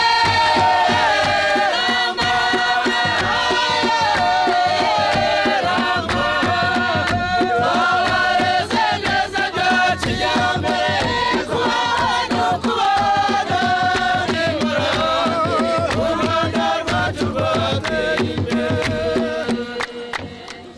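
A group of women singing a Rwandan traditional song together, with a tall wooden drum beating beneath the voices. The sound fades down near the end.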